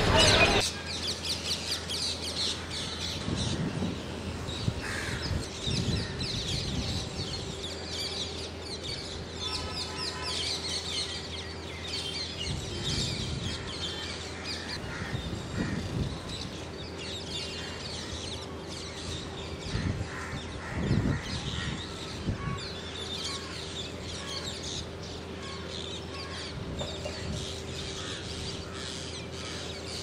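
Dense chorus of many birds calling over one another, mostly the shrill, repeated screeches of a large flock of rose-ringed parakeets.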